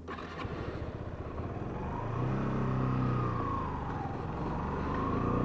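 Small 125cc motorcycle engine pulling away, its pitch rising as it revs up, easing off about four seconds in, then climbing again. A couple of light clicks right at the start.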